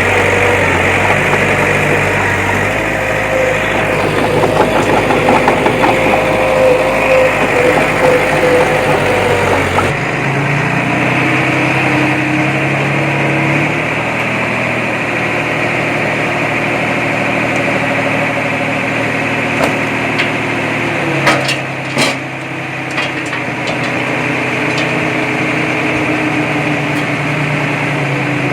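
Heavy earthmoving machine's diesel engine running steadily. Its note changes abruptly about ten seconds in, and a few sharp knocks come about three quarters of the way through.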